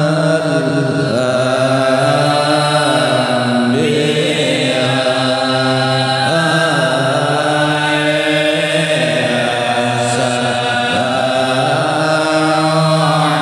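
Voices chanting an Islamic devotional sholawat poem in long, held, gliding notes.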